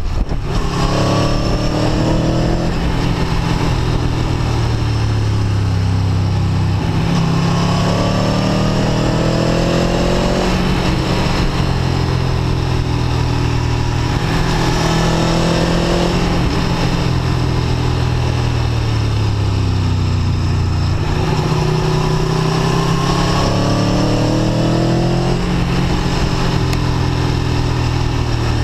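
Aprilia Tuono V4 1100 RR's V4 engine heard from the rider's seat under way, its revs climbing several times as the bike accelerates and dropping back between pulls.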